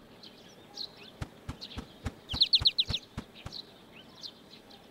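Cartoon bird chirping, with a quick run of high chirps a little after two seconds in, over a series of about ten sharp knocks or taps.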